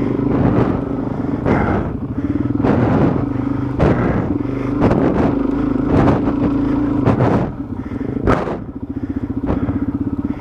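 Dual-sport motorcycle engine running under throttle while the bike jolts over rough trail, with repeated thumps and clatter. About seven seconds in the throttle closes and the engine drops to a low, pulsing putter.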